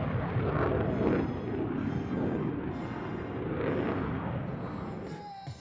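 Airshow aircraft flying past: a rough engine roar that swells and ebbs several times, then fades and drops away suddenly near the end.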